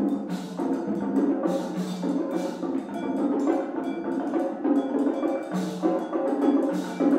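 Percussion trio playing a busy, fast passage: congas and wooden boxes struck by hand and stick in a dense stream of quick strokes.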